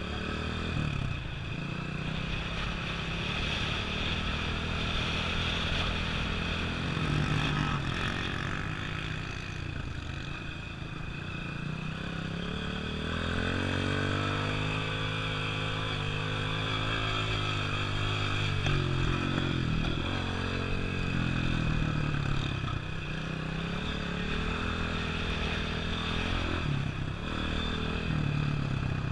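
A vehicle's engine running and revving during off-road driving, its pitch rising and falling again and again, with some rattling.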